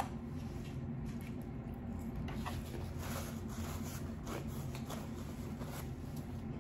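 Person eating seafood: soft, scattered small squishy clicks of chewing and handling food, over a steady low hum.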